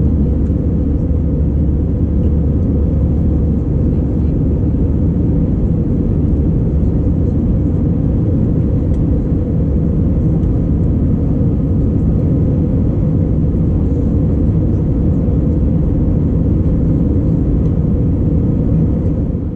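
Steady cabin noise of an Airbus A319-111 in flight, heard from a window seat over the wing: the even, low drone of its CFM56-5B engines blended with the rush of air past the fuselage.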